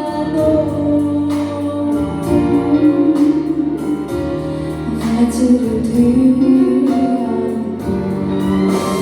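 Slow background music with long held notes and a singing voice.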